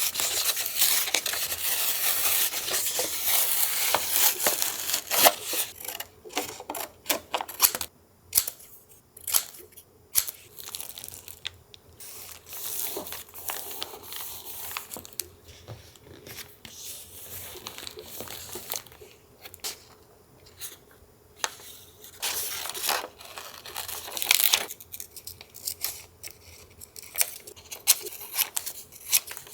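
Paper being torn and rustled while it is handled, with a long loud stretch of tearing and crinkling at the start and another about two-thirds of the way through, and small taps and rustles between them.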